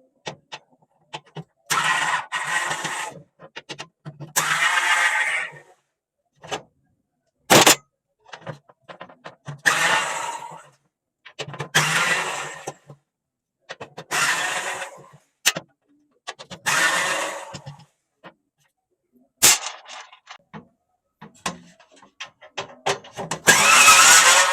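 A small power driver's motor running in short bursts of about a second each, seven or so times, with a couple of sharp clicks between them, as screws are backed out of a welding machine's casing.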